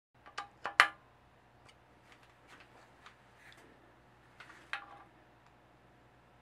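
Metal hand tools clicking and clinking on a moped's handlebar clamp. There are a few sharp clicks in the first second, the loudest just under a second in, then light scattered ticks and another short clink about four and a half seconds in.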